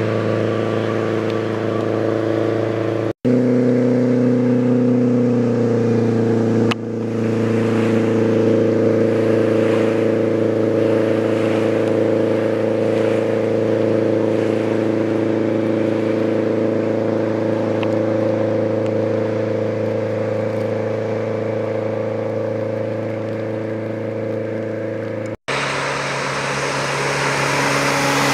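Speedboat engine running at a steady high speed while towing a water skier. Its pitch dips slightly about 5 seconds in, and the sound cuts off abruptly twice. Near the end a louder rush of spray joins it as the boat passes close.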